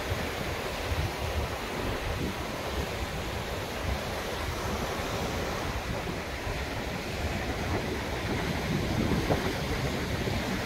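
Pacific Ocean surf breaking and washing over rocks below, a steady rush of waves, with wind buffeting the microphone in a low, uneven rumble.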